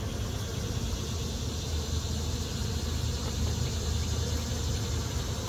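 Honeybees buzzing steadily around an open hive during a frame inspection.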